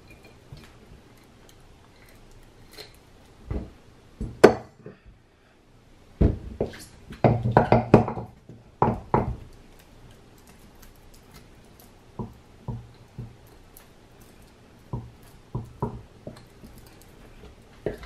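Scattered metallic clinks and knocks as the steel stator and axle of a Ninebot Mini Pro hub motor are handled against the magnet-lined wheel hub. There is a sharp knock about four and a half seconds in, a quick run of knocks from about six to nine seconds, and lighter ticks later on.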